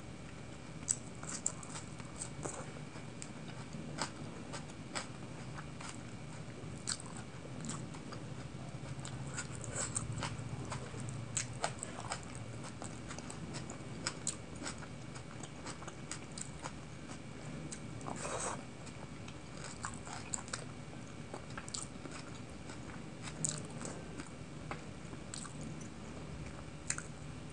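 Close-miked eating sounds: biting and chewing of a raw tomato slice and curried chicken and rice eaten by hand, with many short, sharp wet clicks and smacks and one longer, louder one about 18 seconds in.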